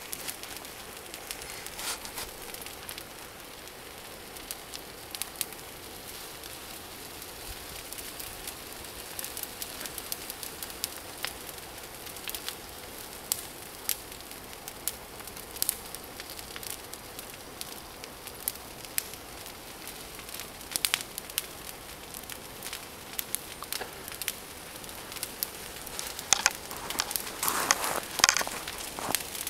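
Large pile of brush and tree branches burning in a bonfire: steady hissing with constant sharp crackles and pops of burning twigs, with a louder, denser burst of crackling near the end.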